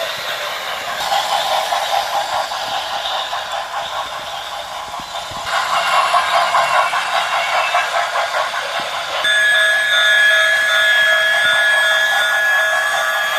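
Model train running on a layout, thin-sounding with no bass: a fast rhythmic clatter in the middle, then from about nine seconds in a steady tone of several notes held together, like a horn or whistle.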